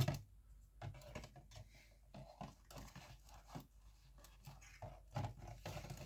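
Vinyl cleaning kit items being handled and put back into their package: scattered small clicks, knocks and rustling, with a sharp knock right at the start.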